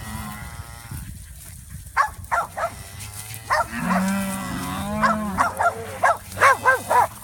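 Beef cattle, cows and calves, mooing and bawling: long, drawn-out moos at the start and again in the middle, with several short, sharp calls from about two seconds in that come quickly together near the end.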